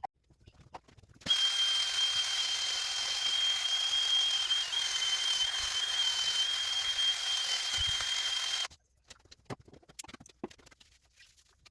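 Aerosol spray paint can spraying in one continuous hiss of about seven seconds, with a steady thin whistle running through it, followed by a few faint clicks.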